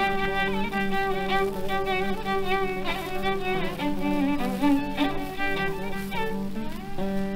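Instrumental background music: a melody over a steady held low note.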